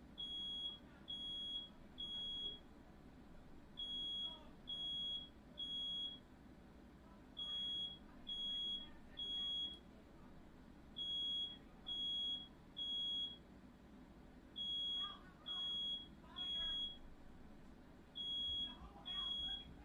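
Smoke alarm sounding its three-beep pattern: three high beeps of about half a second each, then a short pause, repeating steadily, set off by smoke from a fire started by a firework lit indoors.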